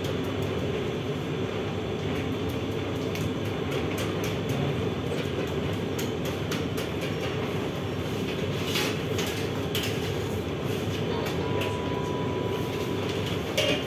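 Steady rumble of a working pebble-bed bread oven, with scattered light clicks and knocks as the baker's peel works at the oven mouth.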